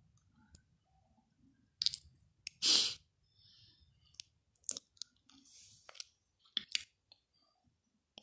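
Scattered small clicks and short rustling noises, the loudest a brief burst of rustle a little under three seconds in.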